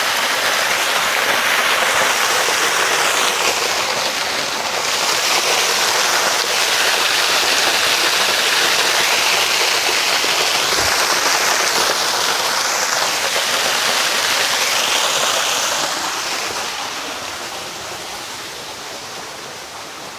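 Waterfall: a steady rushing hiss of water falling and splashing, which fades somewhat over the last few seconds.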